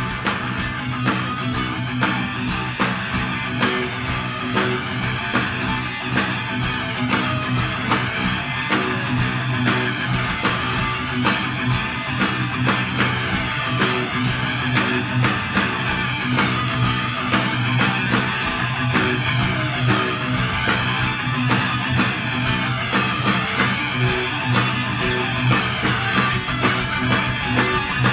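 Heavy metal band playing live: loud distorted electric guitars over fast drums, with a sweeping tone recurring about every two seconds.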